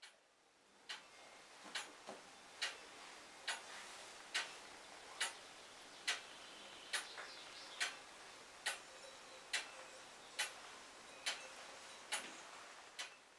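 Mechanical clock ticking steadily, a little more than one tick a second.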